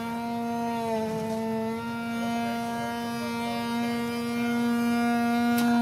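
Brakes of a lifted pickup truck moaning steadily as it creeps down a steep rock slab: a sustained droning tone with a wavering higher line that sounds like bagpipes, which the caption puts down to wet brakes.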